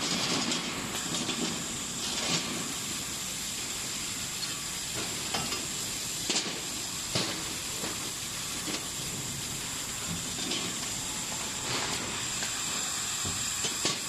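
Automatic laser welding machine running: a steady hiss with a thin, high steady whine, and occasional sharp clicks from its mechanism.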